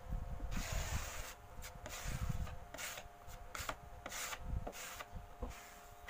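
Putty knife scraping across a plywood tabletop as it spreads filler paste, in a series of short, uneven strokes.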